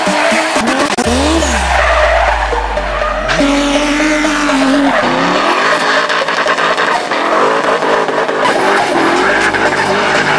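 Drift cars' engines revving hard, their pitch rising and falling, with tyres squealing as the cars slide sideways.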